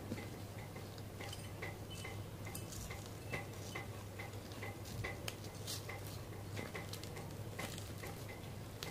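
Faint handling of a small brass idol while a satin dhoti is wrapped on it: soft cloth rustling and many small scattered metal clicks and ticks, over a low steady hum.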